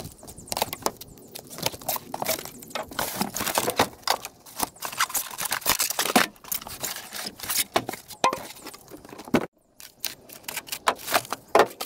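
Cardboard box being opened and styrofoam packing blocks pulled out and handled: irregular rustling, scraping and sharp knocks.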